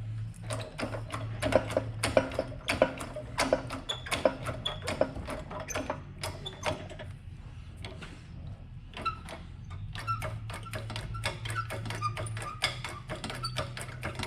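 Rapid, repeated metallic clicking from a tool working a press as a new ball joint is forced into an ATV control arm, which goes in slowly. The clicking comes in two runs with a pause of about two seconds between them, over a steady low hum.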